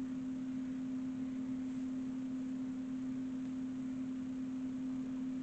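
A steady hum on one pitch, with faint hiss behind it: room tone.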